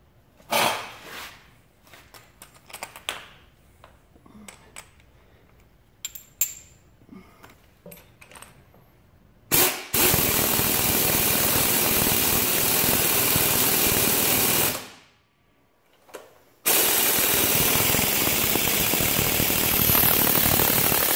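Impact wrench hammering the drum retaining nut tight onto a floor sander's drum shaft, in two runs of about five seconds each with a short pause between. Before that, a few light metallic clicks as the washer and nut are fitted by hand.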